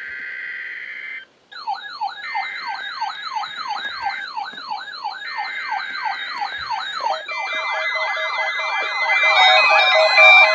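Electronic sirens. A steady tone sounds for about a second and breaks off briefly, then a fast yelp sweeps up and down about three times a second. From about seven seconds in, more siren sweeps and steady tones layer over it and grow louder.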